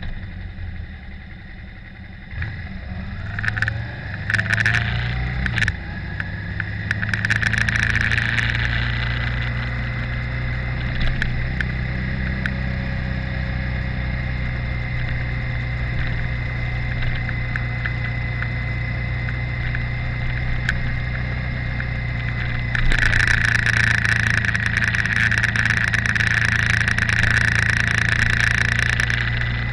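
Motorcycle engine running as the bike rides along, heard from an onboard camera. The engine is quieter at first, then picks up revs a few seconds in. Wind rushes over the microphone in stretches early on and through the last quarter.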